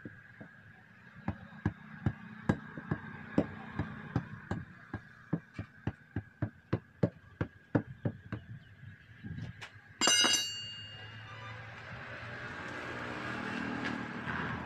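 A steel tyre lever knocks repeatedly against a truck tyre's steel wheel rim, about three to four sharp knocks a second, as the tyre is prised off the rim. About ten seconds in there is one loud ringing metal clang. The heavy truck tyre is then rolled off with a low scraping rumble.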